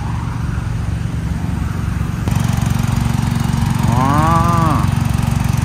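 Vehicle engine and road hum, then after a cut a heavy diesel truck idling close by with a steady, throbbing low hum. A brief voice rises and falls about four seconds in.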